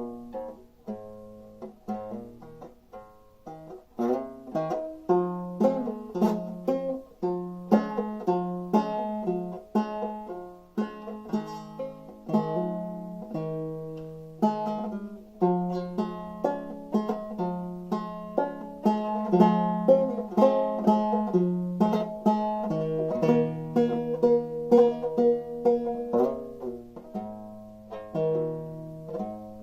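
An 1890s banjo played clawhammer style, picking out a tune in a lowered double C tuning with a steady rhythm. It starts softly and fills out from about four seconds in.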